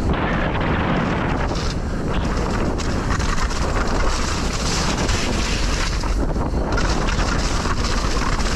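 Steady wind rush on the microphone of a mountain bike descending a downhill trail at speed, over the low rumble of knobbly tyres rolling on wet dirt. The high hiss dips and swells as the bike slows and speeds up.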